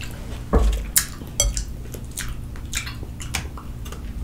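Metal fork clinking and scraping against a glass bowl as food is picked through, in short scattered clicks with a low thump about half a second in.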